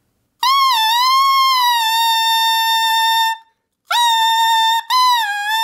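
Alto saxophone mouthpiece played on its own: a high, reedy tone bent down and up before settling on a steady pitch near concert A, sounded three times. The pitch is moved with the tongue inside the mouth to find the mouthpiece's correct centre pitch.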